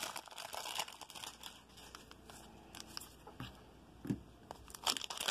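Plastic wrapper of a 1988 Fleer baseball-card rack pack crinkling as it is handled, softly at first and then a few sharper crinkles near the end.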